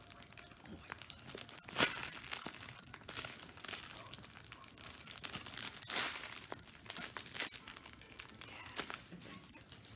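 Crinkly packaging being handled and pulled open, a dense run of crackles with louder crunches about two, six and seven and a half seconds in.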